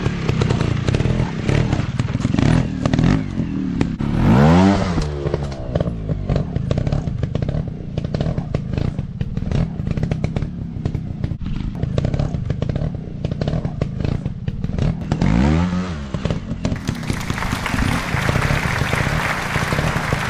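Dirt bike engine running, its pitch rising and falling twice as it is revved, about four seconds in and again near the end, with clattering knocks throughout.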